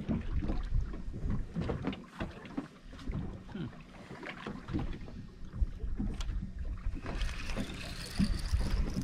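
Water lapping and slapping against a boat's hull, with scattered small knocks, and wind buffeting the microphone.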